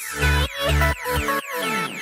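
Electronic outro music: a heavy bass beat under falling synth sweeps.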